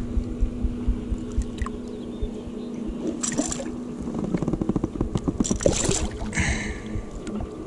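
Water splashing and sloshing at the side of a kayak as a hooked largemouth bass thrashes in weeds and is grabbed by hand, with a quick run of ticks and several short splashes in the second half. A steady low hum runs through the first half.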